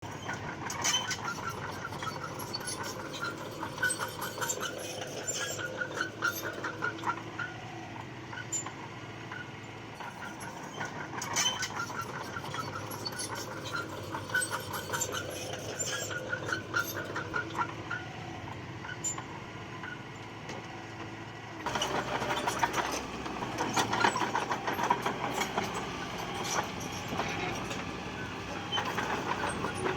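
Crawler bulldozer working: diesel engine running under clanking, squeaking steel tracks with bursts of clatter. About two-thirds of the way through the sound cuts abruptly to a louder, busier mix of engine and clatter.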